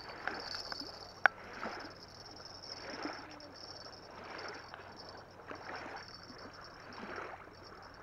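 Small waves lapping on a sandy lake shore, a soft wash swelling and fading about every second and a half. A single sharp click about a second in.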